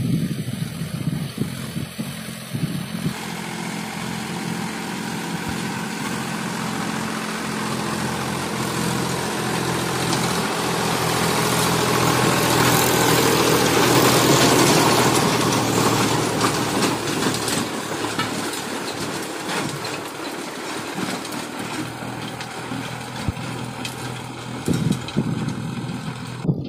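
Mahindra Yuvo 275 DI tractor's diesel engine working under load as it drags a rotavator through dry soil, the engine's steady note mixed with the noise of the tines churning earth. It grows louder as the tractor passes close, loudest about halfway through, then fades as it moves away.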